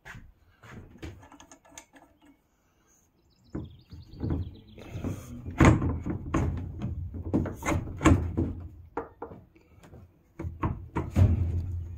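Wooden canoe outrigger parts being handled and slid: a run of irregular thunks and knocks, with some scraping, starting a few seconds in.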